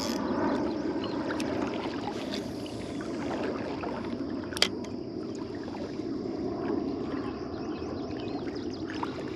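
Creek water flowing with a steady rushing, and one sharp click about halfway through.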